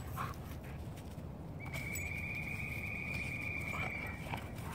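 Two dogs playing rough on a dirt yard, with faint scuffling, and a steady high-pitched tone that starts a little before the middle and lasts about three seconds.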